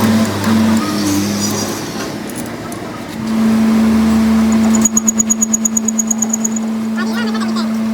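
Lathe running with a steady motor hum; about halfway through a rapid, regular ticking of about five a second joins it.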